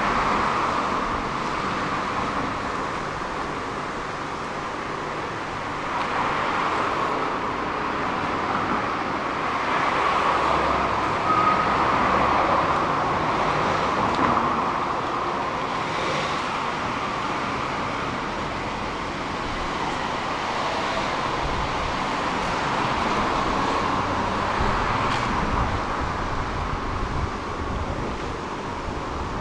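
Street traffic noise: a steady wash of passing cars, swelling slightly about a third of the way in.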